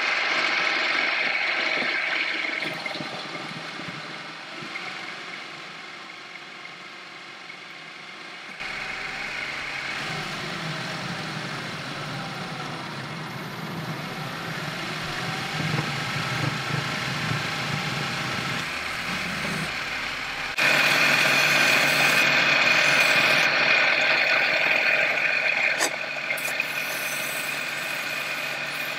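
Metal lathe running as a cutting tool turns down a small metal part; the sound changes abruptly in level and tone two or three times. Near the end the spinning part is sanded with abrasive paper.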